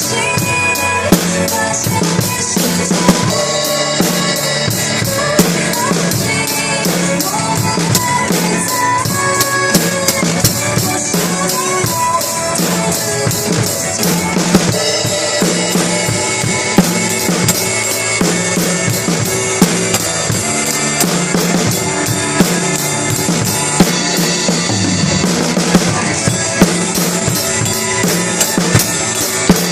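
Drum kit played along to a recorded pop song, a steady beat of kick, snare and cymbal hits over the song's melody and accompaniment, with sharp accents every few seconds.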